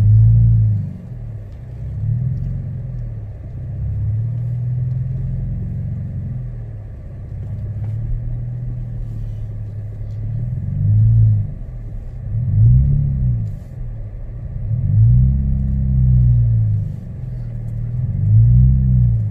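Car engine heard from inside the cabin, its revs rising and falling about six times as the car is eased backward and forward on snow under gentle throttle. A faint steady hum from the heater blower runs underneath.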